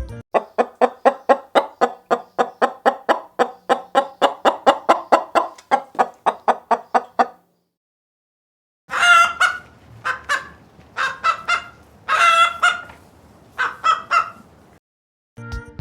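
Chicken clucking in a quick, even run of about four clucks a second for some seven seconds. After a short pause come about six louder, higher-pitched squawking calls.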